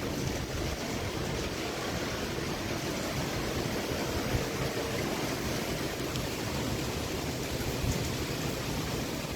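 Steady wind noise with low rumbling buffeting on the microphone, left over from a passing thunderstorm.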